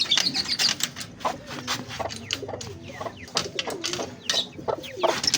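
Backyard birds calling over one another, chickens and pet parrots among them, mixed with short clicks and knocks.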